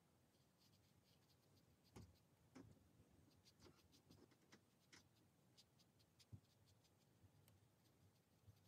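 Near silence, with faint scattered light taps and soft scratchy ticks of a watercolor brush working paint on paper.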